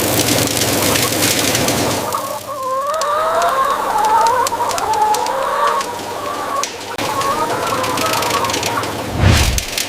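A flock of laying hens clucking and cackling together, many wavering calls overlapping, with scattered light clicks and a short low thump near the end.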